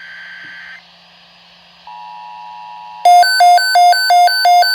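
Emergency Alert System alert tones. A steady electronic tone comes in about two seconds in, and from about three seconds a loud, harsh beeping alternates between two pitches, about three beeps a second.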